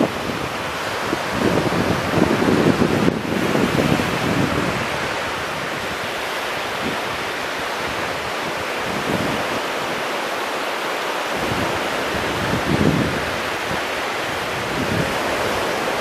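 Small ocean waves breaking and washing up the beach in a steady surf, swelling louder about two to four seconds in and again near the end, with wind buffeting the microphone.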